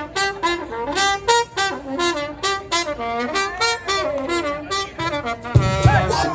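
Brass band playing a riff of short, detached horn notes. About five seconds in, low beats join and the full band comes in louder.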